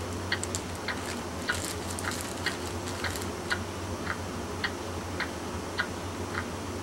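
Baby Alive toddler doll chewing: its mouth mechanism clicks evenly, a little under two clicks a second, with a scatter of sharper clicks from about one and a half to three seconds in.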